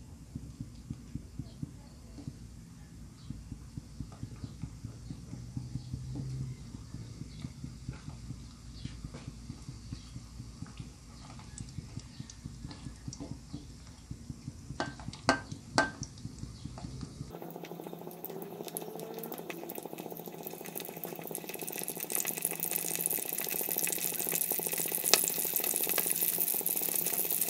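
Dried herring frying in oil in a metal wok: a quiet crackle of small pops at first, a few metal clinks of the spatula against the wok a little past the middle, then a steady sizzle that grows louder toward the end.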